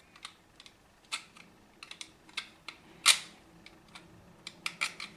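Knife blade cutting into fused layers of self-fusing silicone tape wrapped on an antenna connector: a run of irregular sharp clicks and snips, the loudest about three seconds in.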